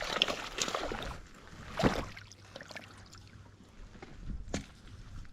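Water splashing and gear handling in a kayak as a small bass is landed, with one sharp knock on the boat about two seconds in and a lighter click near the end.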